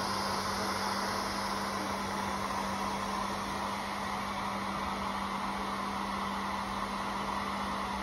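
Brushless-motor pet blower running steadily: an even rush of air with a constant low hum underneath.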